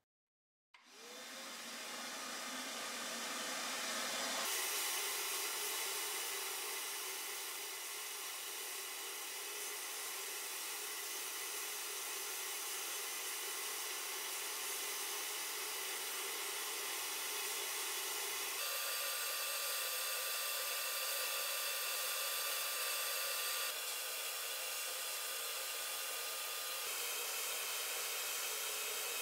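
Blast cabinet running: the compressed-air blast gun hisses steadily as it fires fine glass bead media at the gun's steel parts. The blast starts suddenly about a second in, and its tone shifts a few times.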